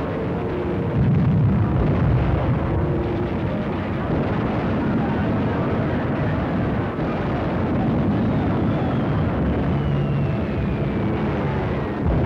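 Battle sound on an old film soundtrack: a continuous low rumble of explosions. In the last few seconds a whistle falls steadily in pitch, and a louder blast comes at the very end.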